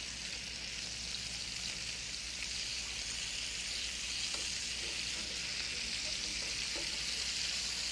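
Beef steaks sautéing in hot butter with a little oil in a frying pan: a steady sizzle as the steaks brown.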